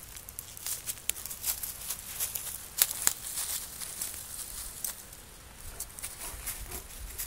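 Footsteps crunching and rustling through dry fallen leaves, an irregular crackle with two sharper cracks about three seconds in.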